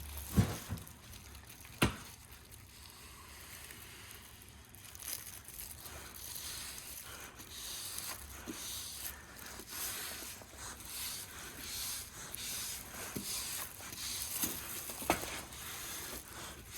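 Applicator pad rubbing plastic trim restorer into textured plastic trim, a soft scrubbing in repeated strokes, with two light knocks near the start.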